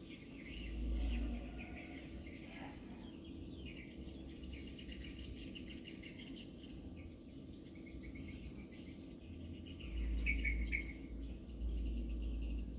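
High-pitched chirping, repeated in short pulses, with low rumbles about a second in and twice near the end.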